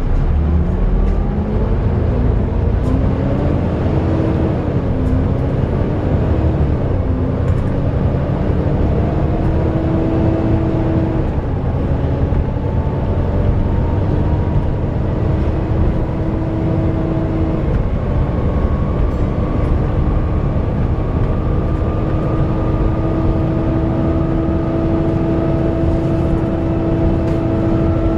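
Volvo B7TL double-decker bus running, its cooling fan giving a loud whine, the 'hoover' sound, over a steady engine rumble. The whine climbs in pitch over the first ten seconds or so, wavers and dips briefly a couple of times, then holds steady.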